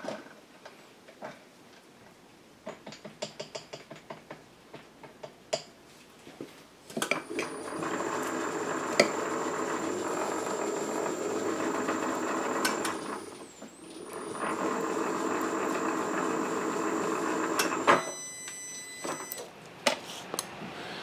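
Milling machine spindle power-tapping a drilled hole: a quick run of light clicks, then the motor runs steadily for about six seconds, stops briefly with its whine dropping and rising again, and runs for about three seconds more before cutting off, followed by a few clicks.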